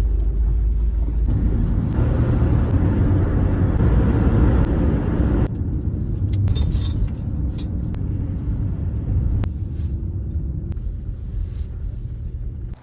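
Minivan driving: a steady low rumble of engine and road noise, with a louder hiss of tyre noise from about two seconds in that eases off after about five seconds.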